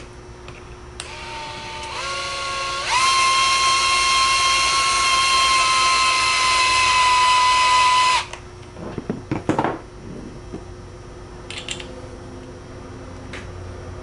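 Cordless drill's motor whining as it drives a bolt into a white plastic conduit end cap. It speeds up in two steps over the first few seconds, runs steadily for about five seconds, and stops abruptly about eight seconds in, followed by a few light clicks of the parts being handled.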